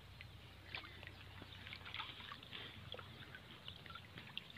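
Faint, irregular drips and small splashes of water falling from a wet cast net as it is handled, over a low steady hum.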